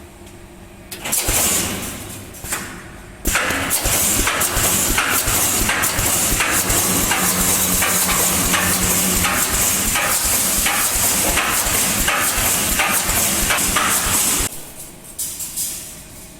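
Pneumatic rebar mesh welding machine running: a steady air hiss laced with a rapid run of sharp knocks from the welding heads. It starts after a short burst of noise about a second in and stops suddenly near the end.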